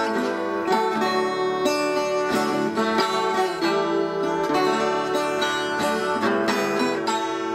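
Instrumental background music of quickly plucked strings, a steady run of short notes.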